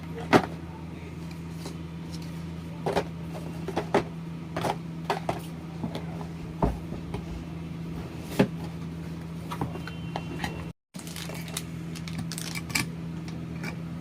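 Scattered clicks and knocks of PC parts and boxes being handled during a build, over a steady low hum. The sharpest knock comes under half a second in, and the sound drops out for a moment near the end.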